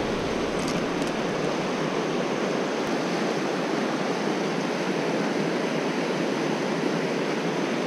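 River water rushing over shallow rapids and riffles: a steady, even hiss of running water.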